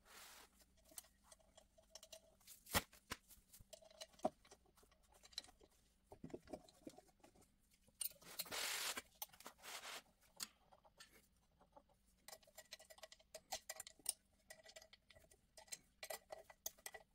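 Faint handling sounds of small metal parts being fitted by gloved hands: scattered light clicks and taps, a sharper click about three seconds in, and a brief rustling swish from about eight to ten seconds in.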